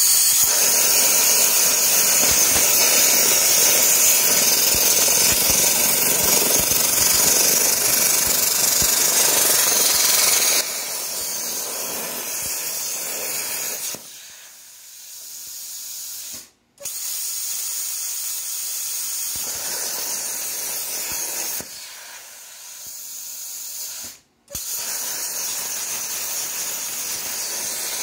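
Plasma cutter arc hissing as a CNC machine torch on an 80-amp Hynade plasma cutter cuts diamond plate steel. The hiss is loud and steady for about ten seconds, then settles lower. Twice it fades away and then starts again abruptly.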